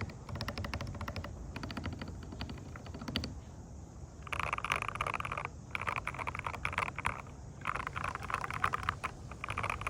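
Typing on a modded Ractous RTK61BP mechanical keyboard with lubed switches and stabilizers, a tape mod and foam inside. It opens with a rapid run of key clicks, then from about four seconds in comes a series of dense typing bursts, each about a second long.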